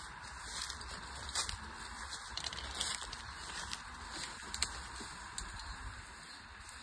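Dry leaves and grass crackling and rustling underfoot: scattered sharp crackles over a steady outdoor hiss.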